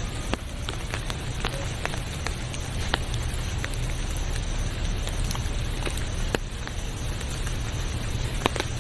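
Rain falling, with scattered single drops ticking sharply over a steady low rumble.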